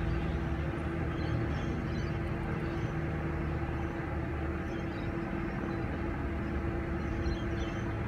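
A steady mechanical hum at a constant pitch, like an idling engine, with a few faint high chirps of distant birds scattered through it.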